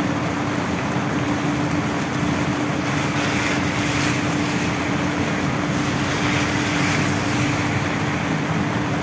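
Heavy rain pouring steadily onto wet pavement and parked cars, with a steady low hum running underneath.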